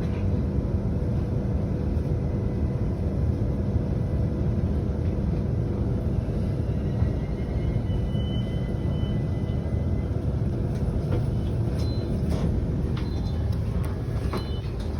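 Steady low rumble of an electric commuter train running, heard from inside the carriage, with faint thin high squeals around the middle and again near the end.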